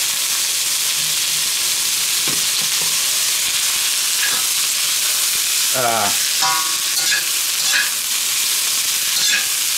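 Diced onions sizzling steadily in olive oil in a hot wok, with a slotted spatula stirring and scraping them across the pan from about four seconds in.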